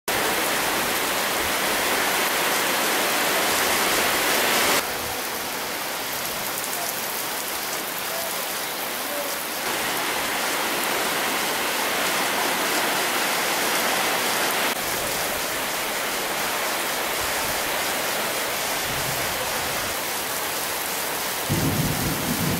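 Heavy rain pouring down, a steady, dense hiss that steps up or down in level a few times. A low rumble comes in near the end.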